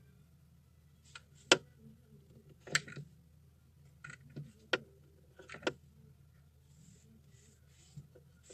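Hands twisting and handling stiff burlap strips: soft rustling with four sharp clicks, the loudest about a second and a half in, over a low steady hum.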